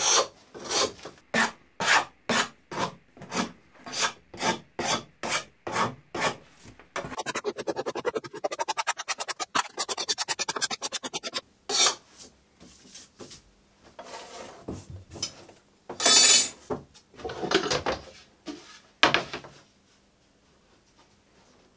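Plastic sheet edges being bevelled by hand with a scraping tool: even rasping strokes about two and a half a second, then a quicker run of short strokes, then a few separate scrapes that stop near the end.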